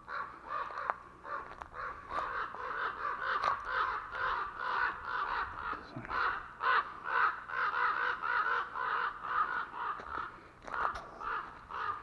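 Crows cawing over and over in a fast, nearly unbroken run of calls: alarm calls scolding an intruder near their nest.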